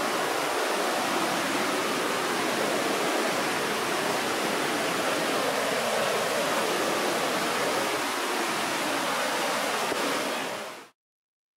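Whitewater rapids on the lower Salmon River, a steady, even rush of churning water. It drops away abruptly near the end.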